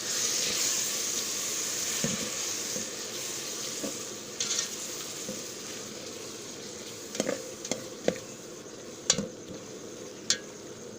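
Onion-tomato masala with spices and a splash of water sizzling in a pan while it is stirred. The sizzle slowly dies down, and in the second half a spoon knocks and scrapes against the pan about five times.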